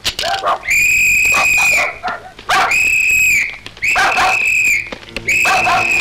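A shrill whistle blown in four long, steady blasts, about a second each, with dogs barking in the gaps between them.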